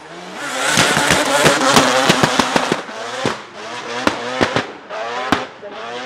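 Twin-turbo four-rotor rotary engine of a Nissan Silvia S15 revving hard as the car drifts past, peppered with rapid sharp exhaust pops and bangs. It fades after the middle as the car pulls away, still popping several times.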